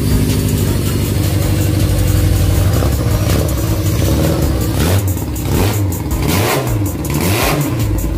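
Honda Megapro's engine, converted to four cylinders, running steadily and then revved in several quick throttle blips, its pitch rising and falling.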